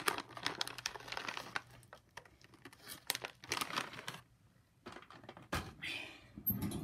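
Crinkling and rustling of plastic packaging being handled, in irregular crackly bursts that thin out after about four seconds, then a few sharp clicks near the end.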